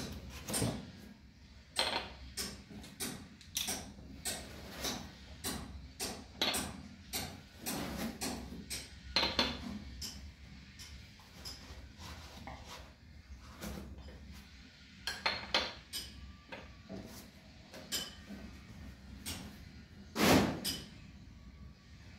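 Unpacking sounds: a cardboard box rustled and handled, with a series of sharp knocks and clinks as glass storage jars are taken out and set down one by one on a stone countertop, and one louder knock near the end.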